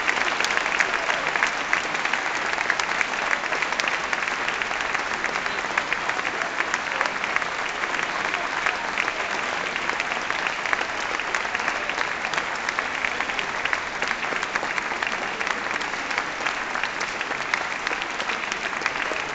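Large concert-hall audience applauding, a dense, steady clapping.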